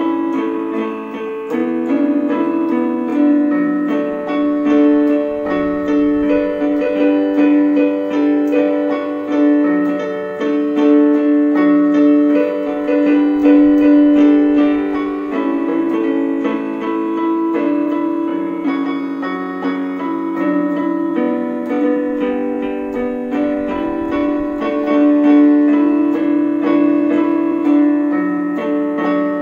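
Portable electronic keyboard played with both hands: a melody of changing notes over long held lower notes.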